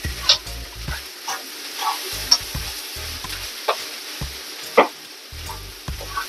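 Callaloo and chicken fried rice sizzling in a nonstick frying pan as a spoon stirs and scrapes through it, with irregular sharp scrapes and knocks against the pan over a steady sizzle.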